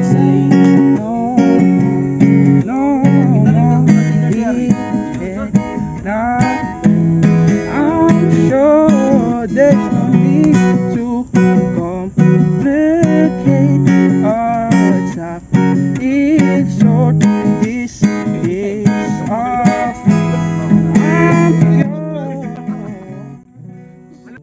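Acoustic guitar strumming chords with a singing voice over it, fading out near the end.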